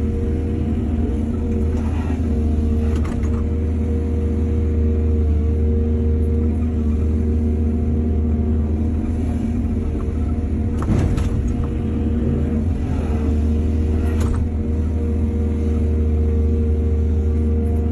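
Excavator's diesel engine running steadily under load, with about four short clanks of the bucket and steel at work.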